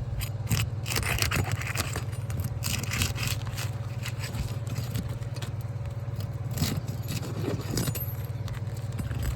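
Irregular scraping and crackling of a roofing tool being worked under thin, brittle asphalt shingles, breaking the sealant bond between the courses so they come loose.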